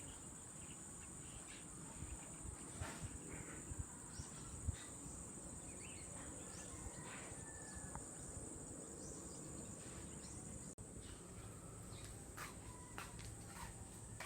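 Insects chirring steadily in a high band, with scattered faint bird chirps and small knocks. The sound cuts out for an instant about two-thirds of the way through.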